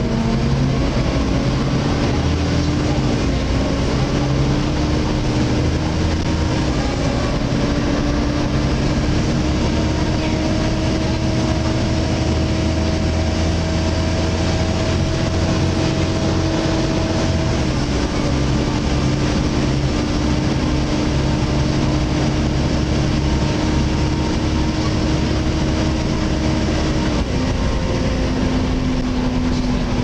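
Volvo B7TL double-decker bus heard from the upper deck while under way: a low diesel engine rumble with a loud whining cooling fan (a "hoover") over it. The whine holds steady, stepping slightly up or down in pitch a few times.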